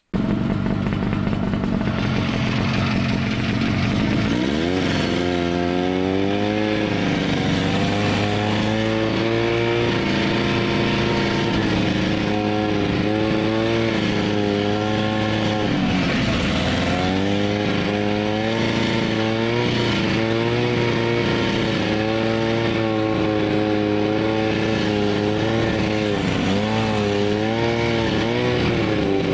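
Snowmobile engine running under way. Its pitch rises about four seconds in, then keeps rising and falling with the throttle, with a dip around the middle.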